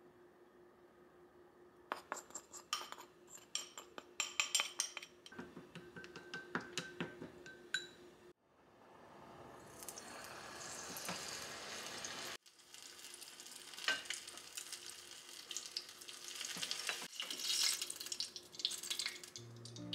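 Wooden chopsticks stirring and tapping against a small glass bowl, mixing tempura batter in a run of quick clicks. About eight seconds in, battered fig pieces begin sizzling in a small pot of hot oil, a steady hiss with small clicks that lasts to the end.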